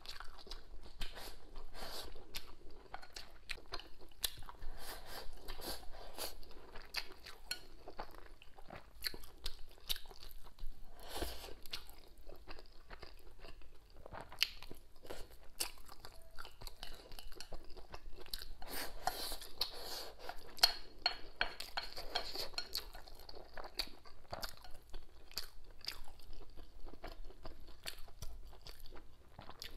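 Close-miked chewing and mouth sounds of a person eating braised pork belly with preserved mustard greens and rice, with many short clicks throughout.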